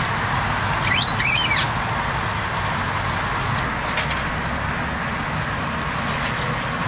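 A bird chirps a quick run of falling notes about a second in, over a steady hiss and a low hum.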